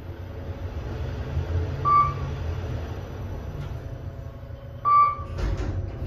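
Kone MonoSpace elevator car with a steady low hum, and two short electronic beeps about three seconds apart. A dull thud comes just after the second beep.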